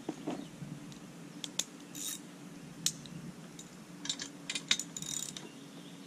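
Ratchet wrench clicking in short, irregular runs while adjusting the clamp bolts on an Alaskan chainsaw mill's aluminum height posts. The clicks are single and spaced at first and come in a quick cluster about four seconds in.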